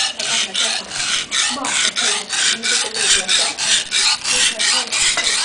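Kitchen knife blade being sharpened on a wet whetstone: steady back-and-forth strokes of steel grinding on the stone, about three rasping scrapes a second.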